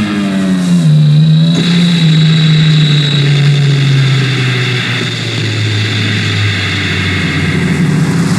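Distorted electric guitar noise through a Marshall amplifier stack as the guitar is smashed and its strings are scraped against the amp: a loud, droning note that slides slowly down in pitch, with a knock about a second and a half in.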